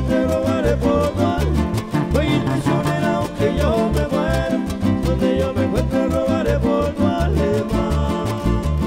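Live regional Mexican band playing a dance song, with guitars over a steady, pulsing bass beat and a melody gliding above.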